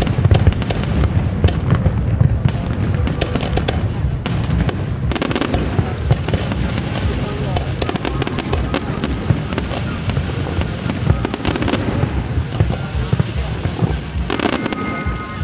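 Fireworks display: a dense, continuous crackle of many small bursts over a steady low rumble of shell explosions.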